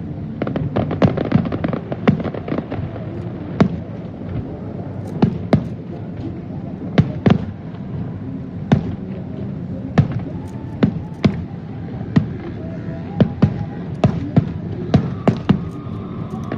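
Fireworks going off: a string of sharp bangs at irregular intervals, sometimes two or three in quick succession.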